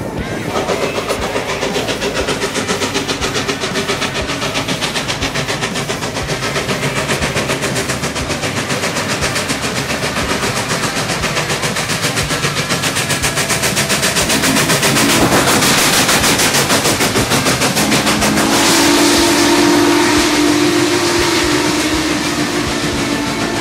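Norfolk & Western Class J 611 steam locomotive working hard as it approaches and passes close, its exhaust beating in a fast, even rhythm and growing louder. Near the end a long steady whistle blast sounds over the exhaust. The recording is overloaded by the noise.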